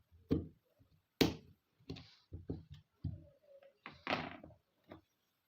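Irregular sharp knocks and clicks from handling Glock pistol parts, the loudest about a second in and a longer, ringing knock near four seconds.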